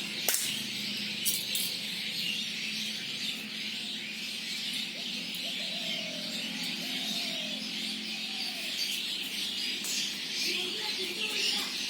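Birds chirping and calling in a steady chorus, with a few sharp clicks in the first couple of seconds.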